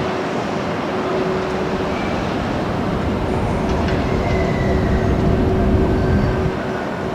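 Freight train hauled by an EF81 electric locomotive rolling along the track: a steady, loud rumble of wheels on rail, with faint high wheel squeals now and then.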